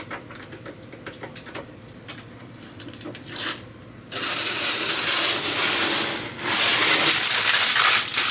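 Protective plastic film being peeled off a new computer case: a loud, rasping tear that starts suddenly about four seconds in, breaks off briefly, then goes on for a second long pull.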